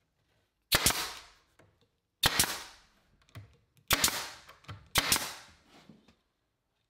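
Pneumatic nail gun firing four times, driving nails to attach bead molding to a wooden bookcase: each shot a sharp snap with a short fading tail, about a second and a half apart.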